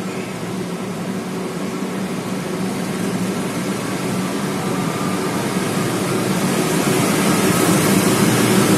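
GE CC206 diesel-electric locomotive's engine running with a steady hum, growing steadily louder as the train approaches.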